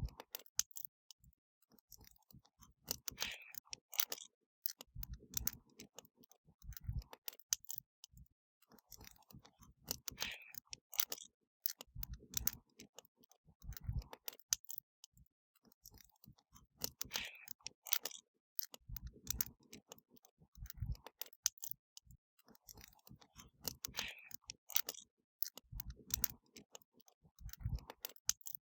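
Wood fire crackling: irregular sharp snaps and pops with occasional low soft thuds, the same pattern repeating about every seven seconds.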